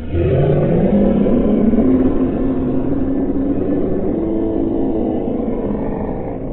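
Darth Maul's scream of 'Kenobi!' played back at quarter speed, which turns it into a deep, drawn-out drone. Its pitch climbs over the first couple of seconds, then holds steady, and it fades slightly near the end.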